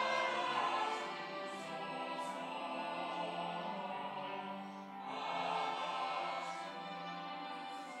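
Mixed church choir singing a Korean hymn anthem in long held notes, dipping briefly and then swelling louder about five seconds in.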